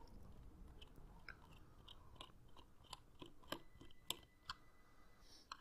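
Small screwdriver backing a screw out of a plastic game controller's case: faint, irregular little clicks.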